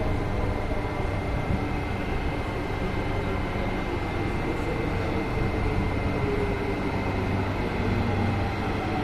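Steady rumble and hum of an underground rail station, with the whine of a Hyundai Rotem electric commuter train approaching through the tunnel, its pitch slowly falling near the end as it brakes.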